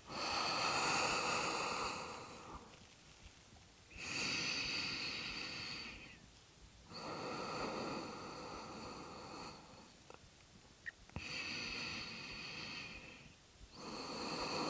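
A person breathing slowly and audibly, close to the microphone: long, airy breaths of about two seconds each, five in all, with short pauses between, as deep breathing through a held yoga forward fold.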